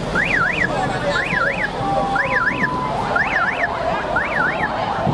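An electronic alarm chirping about once a second, each chirp a quick double rise-and-fall in pitch, over a noisy background of voices.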